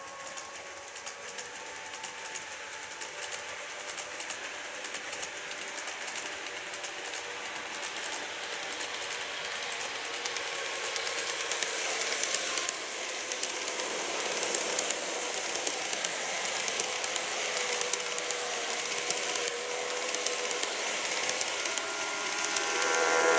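KATO N-scale 225 series 100 model electric train running on curved track: a small electric motor whines steadily over a fine, rapid ticking of the wheels on the rails. It grows gradually louder as the train comes closer.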